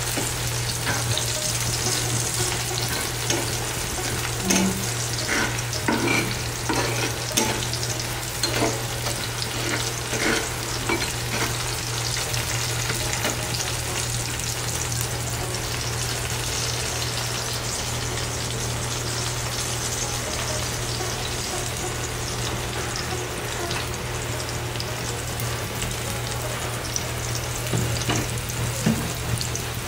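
Chopped hog plum and green chillies sizzling steadily in oil in a frying pan, with a spatula scraping and stirring them: the stirring strokes are busiest in the first part and return near the end. A steady low hum runs underneath.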